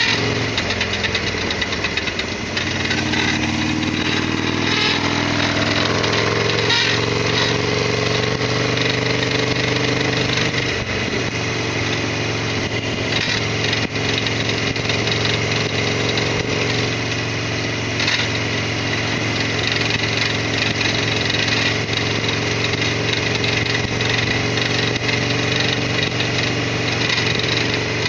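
Harley-Davidson Sportster 1200's air-cooled V-twin engine running. Its pitch rises and falls over the first few seconds, then holds steady.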